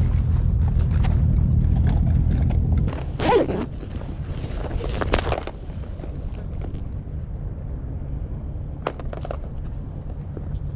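Wind rumbling on the microphone, then scraping as a plastic tackle box is handled, and a sharp click about nine seconds in as the box is snapped open.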